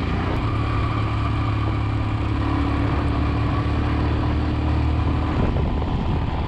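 Royal Enfield Himalayan's single-cylinder engine pulling steadily under load on a steep uphill climb, heard from on the bike, with wind and road noise.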